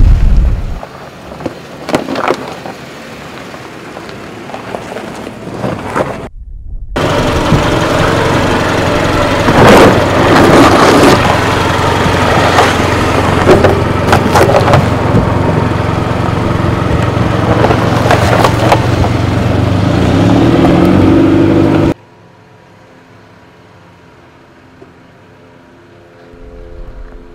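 Jeep 4x4 engines running at low speed as the vehicles crawl over rock, with scattered crunches and cracks of tyres on rock and gravel. The engine note rises about twenty seconds in, then drops to a faint distant engine hum.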